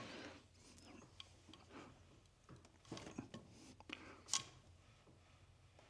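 Mostly quiet, with a few faint metal clicks and taps as a socket and long-handled wrench are fitted onto a motorcycle cylinder head bolt; the sharpest tap comes about four seconds in.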